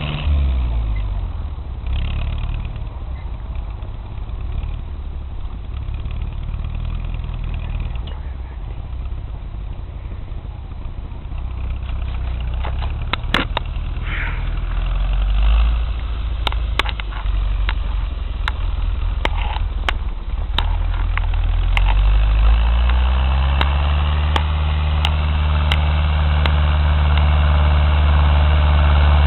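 Ursus C-360 tractor's four-cylinder diesel engine drops in revs in the first second, then runs low and uneven with scattered sharp clicks and knocks. About three-quarters of the way in it revs up and holds a steady, louder pitch.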